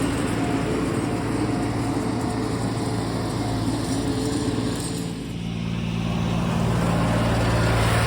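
A motor vehicle's engine running steadily, its note changing about five seconds in as the low engine tone grows stronger.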